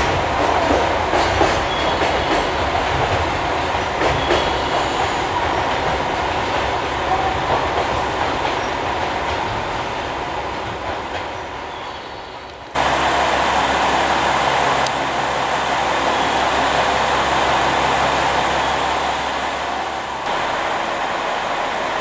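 A container freight train running past on the tracks, its wheels clattering over the rail joints, the sound slowly fading as it moves away. About two-thirds of the way through it cuts abruptly to a steady low hum with a few held tones.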